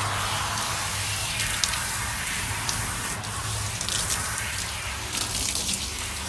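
Water from a garden-hose spray nozzle hissing steadily and splashing onto a large dog's wet coat during a bath. A low steady hum underneath stops about four seconds in.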